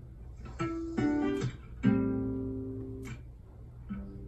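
Instrumental backing music of plucked guitar notes, each struck and left to ring, in a slow, sparse pattern.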